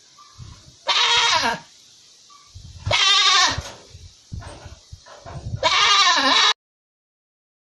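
Sheep bleating three times, each a wavering call of under a second, about two seconds apart.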